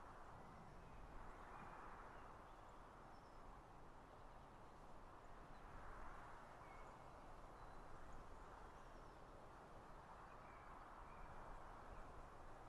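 Faint outdoor ambience: a soft rush that swells and fades slowly, with a few distant bird chirps scattered through it.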